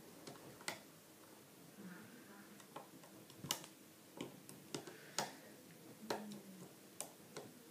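Faint, irregular clicks and ticks of a plastic hook picking at rubber bands on a plastic bracelet loom, about eight sharp clicks spread unevenly.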